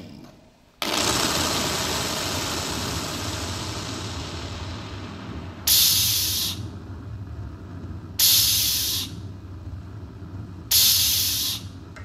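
Electronic soundscape played over PA speakers. A wash of hissing noise starts suddenly about a second in and slowly fades over a low hum. Then three loud bursts of hiss, each under a second, come about two and a half seconds apart.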